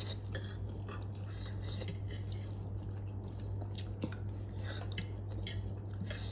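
Close-up eating sounds: chewing and slurping of noodles, with light clicks of cutlery against a bowl, over a steady low hum.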